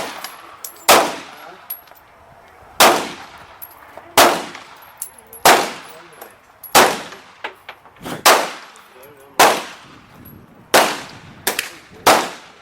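Handgun shots fired one at a time, about ten at uneven intervals, two of them close together near the end; each is a sharp crack with a short ringing tail.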